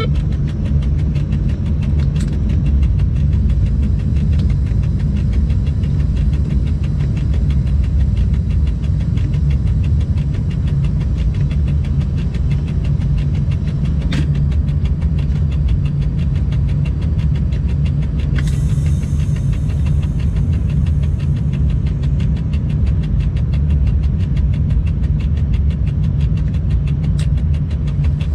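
Inside the cab of an electric freight locomotive on the move: a steady low rumble with a few sharp clicks, and a hiss that starts suddenly about two-thirds of the way through and fades over a few seconds.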